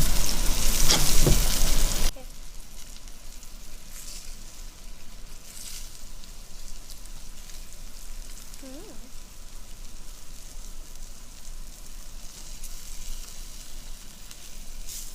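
Tilapia fillets frying in olive oil in a pan, sizzling steadily. The sizzle is loud for the first two seconds, then drops off suddenly to a quieter level.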